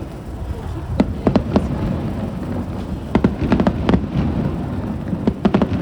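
Aerial fireworks popping and crackling in quick clusters of sharp reports, about a second in, again around three to four seconds in, and near the end, over a steady low rumble.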